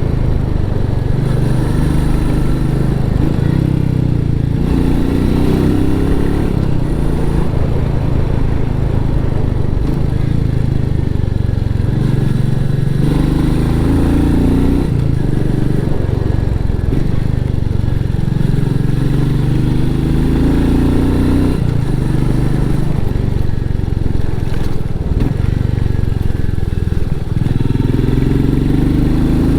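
Royal Enfield Meteor 350's 349 cc single-cylinder engine running through its stock exhaust on the move, the engine note climbing and dropping again several times as the throttle is opened and eased off.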